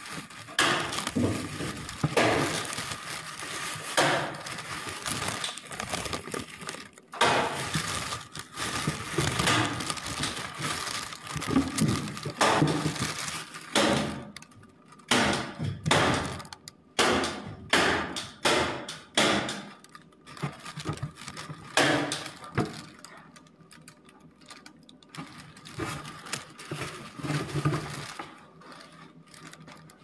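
Close handling noise: black plastic sheeting rustling and crackling while crumbly white material is broken up by hand. It comes as dense, irregular crackle at first, then as separate sharp crunches, and thins out in the last third.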